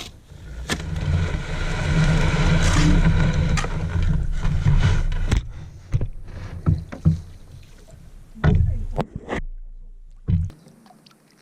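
Paddling a small boat on a lake: water swishing with the strokes and a string of sharp knocks of the paddle against the hull, over a loud low rumble through the first half that fades away near the end.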